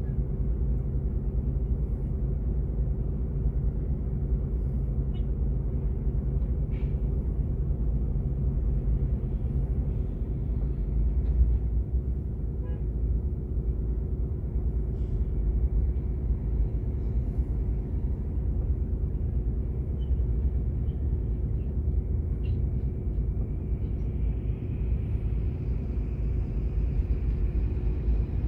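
Steady low rumble of a vehicle engine idling while stopped, with road traffic passing close by; a heavy dump truck crosses in front about halfway through.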